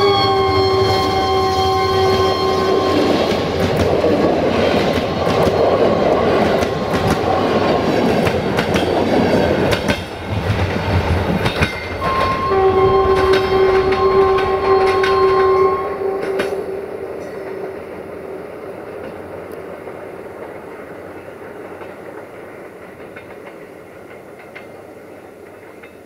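A Romanian CFR class 64 diesel locomotive's horn, several tones at once, ends its blast as the locomotive passes. The passenger coaches then rumble by, clicking over rail joints. About halfway through the horn sounds again for three or four seconds, and then the train's rumble fades as it draws away.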